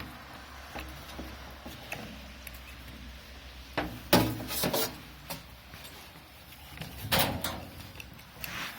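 Knocks and clatter of gas grill parts being handled and fitted, with a cluster of loud knocks about four seconds in and another about seven seconds in.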